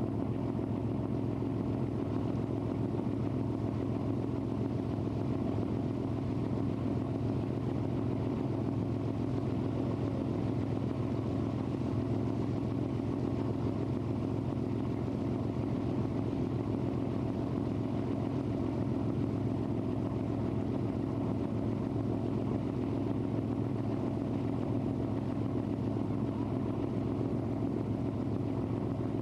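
A lake cruise boat's engine running at a steady cruising speed, heard on board as an even, unchanging low drone.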